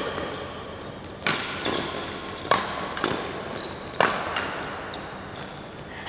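Badminton rackets striking a shuttlecock in a rally: four sharp hits about one and a quarter seconds apart, echoing in the hall, with faint shoe squeaks on the court floor between them.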